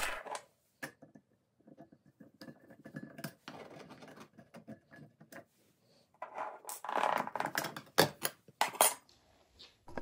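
Small handling noises as a plastic outlet cover plate is unscrewed and taken off the wall: light scraping and clicks, a louder scraping stretch a few seconds in, and two sharp clacks near the end.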